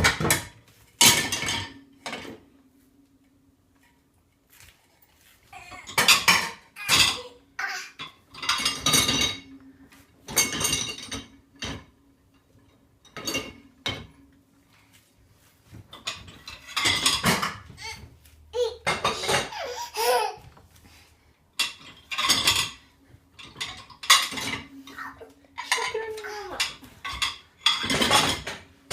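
Dishes and cutlery clattering and clinking again and again as they are handled and passed over one by one, with a voice now and then.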